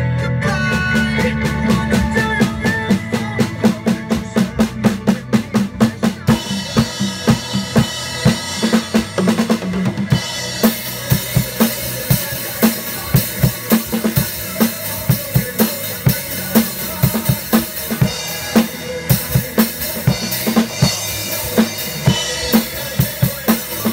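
Acoustic drum kit with Zildjian cymbals played in a steady rock beat, bass drum and snare strokes over a recorded song with pitched instruments. The cymbals get louder about six seconds in and wash over the beat from about ten seconds on.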